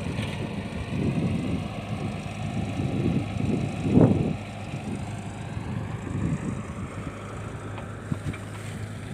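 Mini excavator's diesel engine running with a steady low hum, under irregular wind buffeting on the microphone; a louder low thump about four seconds in.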